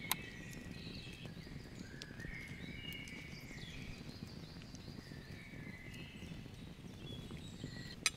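Several wild birds singing and chirping in woodland, short whistled phrases and gliding notes over a faint steady outdoor background. A couple of sharp clicks right at the start and one near the end.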